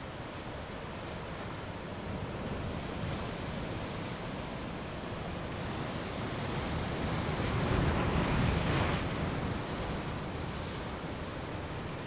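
Ocean surf washing against rocky shore, a steady rushing wash with a wave breaking louder about eight seconds in.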